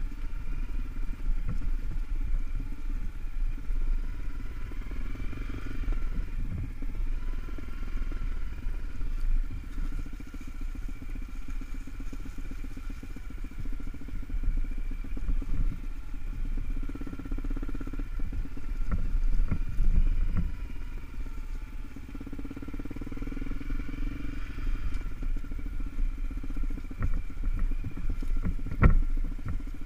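Honda CRF250L's single-cylinder four-stroke engine running as the bike is ridden over a rough dirt trail, its pitch rising and falling with the throttle a few times, with occasional short knocks.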